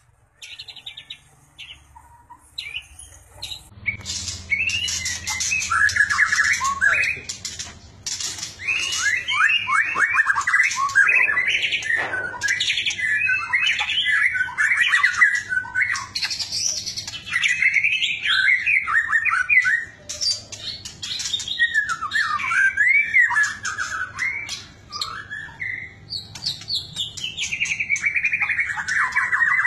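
White-rumped shama (murai batu) singing a long, fast, varied song of whistles, trills and rattling phrases. It starts a few seconds in, after a short quiet stretch.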